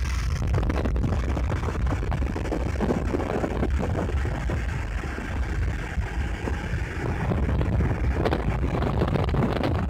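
Wind rumbling on the microphone of a moving motorbike, mixed with the ride's engine and road noise, steady throughout.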